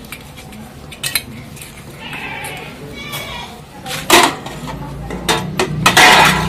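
Stainless-steel plates, bowls and utensils clattering and clanking against each other as they are hand-washed and set into a steel tray. There are scattered clinks, a loud clank about four seconds in, and a burst of clatter near the end.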